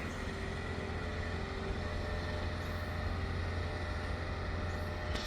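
Steady low engine rumble of vehicles with traffic noise, with no clear change or separate event.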